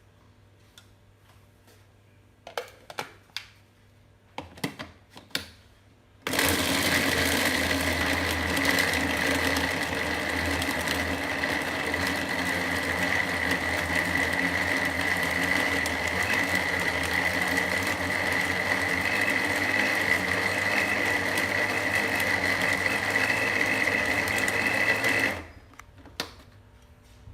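A few knocks as the grinder is set up, then about six seconds in an electric food grinder's motor starts and runs steadily with a high whine for about nineteen seconds, grinding seasoned fish into a fine paste, before cutting off suddenly.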